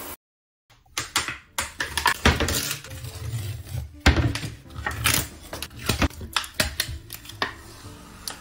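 Tape and paper being handled, torn and peeled off a painted wooden cabinet door: an irregular run of crinkles, rips and small clicks.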